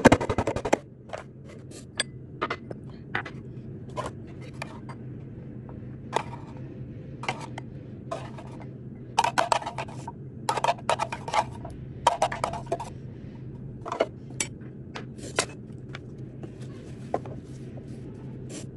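Metal clinks and scrapes from a stainless steel hand-crank food chopper: a brief rapid rattle of its blades right at the start, then a spoon scraping and tapping chopped food out of the metal container, in scattered clusters of clinks. A steady low hum runs underneath.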